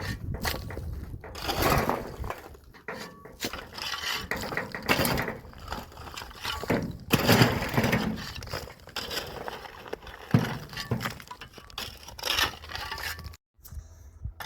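Irregular crunching and cracking noises with a few sharp knocks, like material being broken up and moved.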